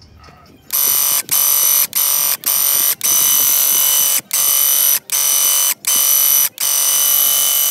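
Graco Ultra Max handheld airless paint sprayer's pump buzzing loudly as the trigger is pulled in nine short bursts, each cutting off cleanly, while it sprays paint.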